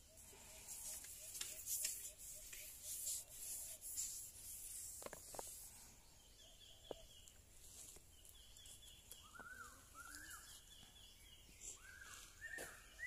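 Crackling and rustling of dry leaves and twigs through the first half. From about halfway, a bird calls repeatedly in short rising-and-falling notes, along with a quicker series of higher chirps.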